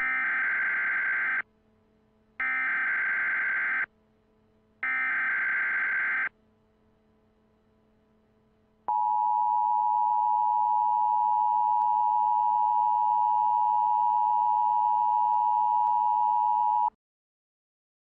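Emergency Alert System broadcast signal: three short screeching bursts of SAME digital header data, each about a second and a half long with about a second between them. A pause follows, then the steady two-tone attention signal for about eight seconds, which cuts off sharply. This sequence marks the start of an emergency alert, here a tsunami warning.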